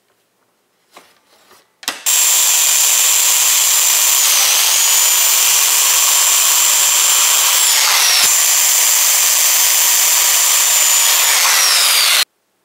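Skil circular saw running and cutting through hardwood pallet boards: a loud, steady motor whine over the noise of the blade in the wood, its pitch sagging a few times as the blade takes load. It starts about two seconds in, after a few light clicks, and cuts off suddenly near the end.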